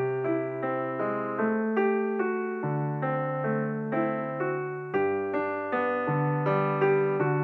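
Background piano music: a steady run of struck notes over held bass notes.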